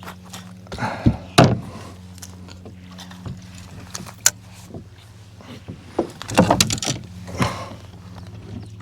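Scattered knocks, clicks and rustling of a fish being landed and handled aboard a kayak, with two louder scuffling stretches, about a second in and again near six to seven seconds, over a faint steady low hum.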